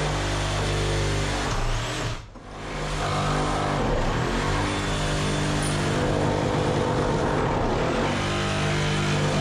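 An engine running steadily at a constant speed, cutting out briefly about two seconds in and then carrying on.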